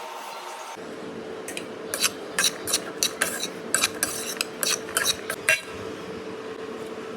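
A metal utensil clinking and scraping against a cooking pan as vegetables are stirred: about a dozen sharp clicks over some four seconds, over a steady hum that begins about a second in.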